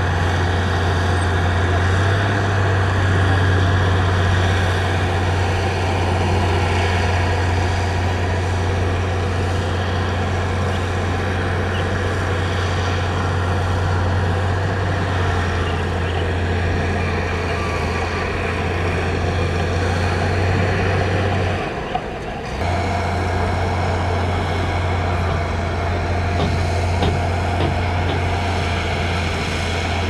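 Diesel engine of heavy earthmoving equipment running steadily with a deep, constant drone, briefly cutting out about two-thirds of the way through.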